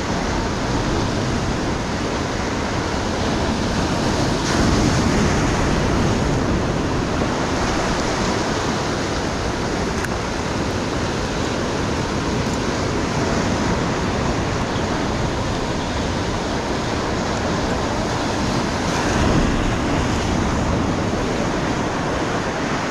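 Ocean surf breaking and washing over shoreline rocks: a steady rush. It swells louder with a bigger wave about five seconds in and again a few seconds before the end.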